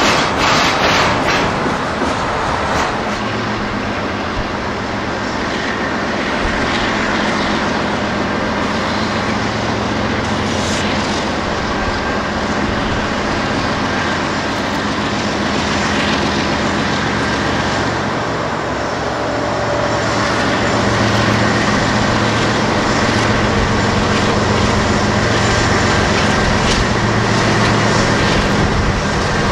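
A train running along the track: steady noise of steel wheels on rail, with a low, steady hum underneath that grows a little louder about two-thirds of the way in.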